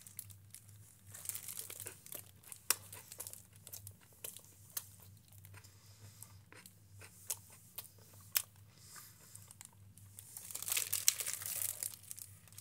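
Thin clear plastic bag crinkling as a slice of pizza is handled inside it. Scattered soft rustles and clicks, then a louder, denser stretch of crinkling near the end.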